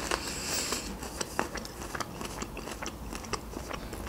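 Close-miked chewing of raw red bell pepper, with irregular crisp crunches and wet clicks.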